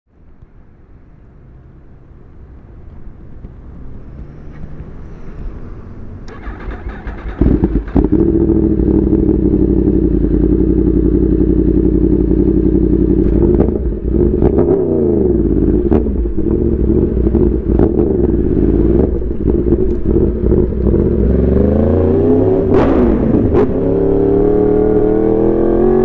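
Yamaha R1 sport bike's inline-four engine running, fading up over the first few seconds and then loud and steady from about seven seconds in. The revs dip and rise once around the middle, then climb again near the end.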